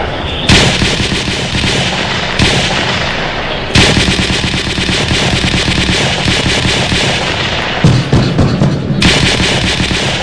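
Automatic gunfire in repeated, overlapping bursts of rapid shots, a new burst starting every few seconds: a staged exchange of fire in a mock battle between rangers and poachers.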